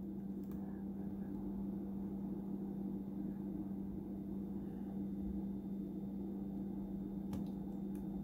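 Faint small ticks of a tiny antenna cable connector being fiddled against a laptop Wi-Fi card's socket, once about half a second in and twice near the end, over a steady low hum; the connector is not yet clicking into place.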